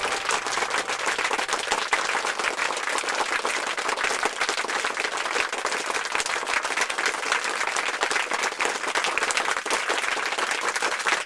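Crowd applauding: dense, continuous clapping of many hands at a steady level.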